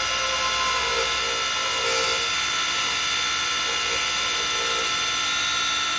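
Wood lathe running steadily while a hand-held turning tool cuts into a spinning spindle, throwing off shavings: a constant motor hum with the hiss of the cut over it.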